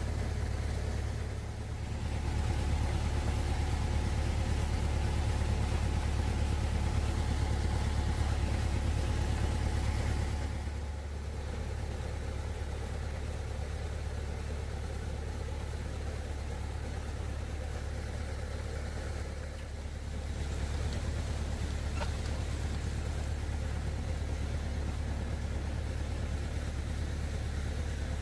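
An engine running steadily with a low drone. It gets louder about two seconds in, drops back near the middle and picks up again about two-thirds of the way through.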